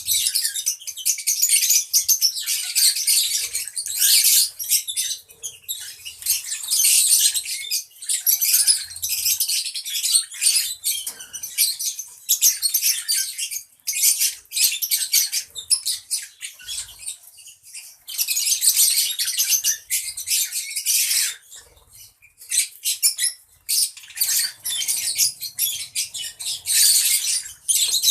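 Several lovebirds chattering with rapid, high-pitched chirps and squeaks, with a brief lull about three-quarters of the way through.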